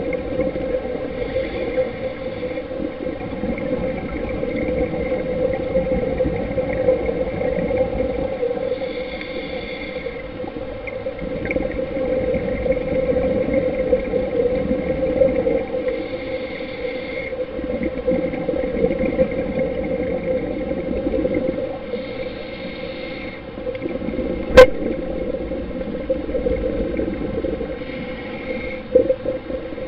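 Underwater sound of scuba diving: a diver's regulator breathing, with a burst of exhaled bubbles gurgling about every six seconds over a steady low drone. A single sharp click about three-quarters of the way through.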